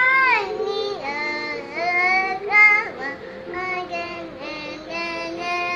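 A two-year-old girl singing a nursery rhyme, holding and sliding between notes.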